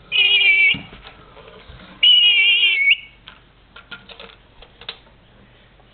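Rainbow lorikeet giving two shrill whistled squeals, each under a second, one at the start and one about two seconds in. After them come a scatter of light clicks and taps.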